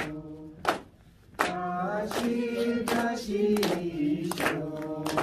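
Men's voices singing a song together in long held notes, with hands clapping in time, about one clap every 0.7 seconds. There is a short break between phrases about a second in.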